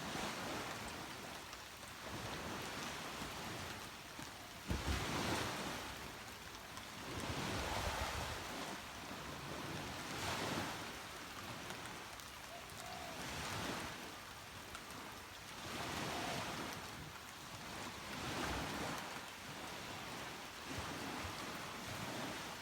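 Small waves breaking on a sandy beach every two to three seconds over a steady hiss of rain. The loudest break is a sudden one about five seconds in.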